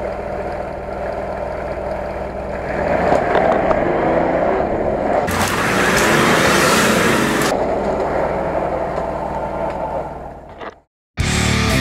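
Nissan Patrol off-roader's engine revving under load while climbing through mud, growing louder about three seconds in, with a loud hiss of spinning tyres and flung mud for about two seconds midway. The sound fades out near the end, cuts to a moment of silence, and rock music with electric guitar starts.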